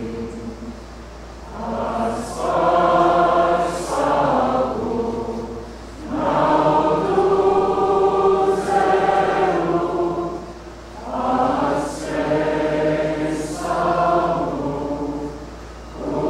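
A large mixed group of young voices singing together as a choir, in long phrases with brief dips between them.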